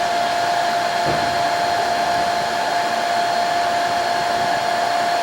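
Electric air blower feeding a brake drum forge, running steadily: an even rush of air with a constant whine.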